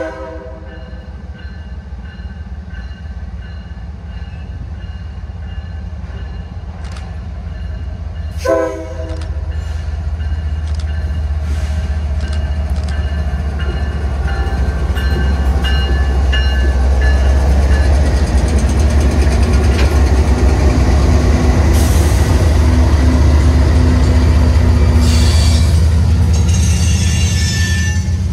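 Canadian National GE Evolution-series diesel locomotives (an ES44DC and an ES44AC) pulling a freight train slowly past. A short horn blast sounds about 8 seconds in. The engines' low rumble grows steadily louder as the units come alongside and stays loud through the second half.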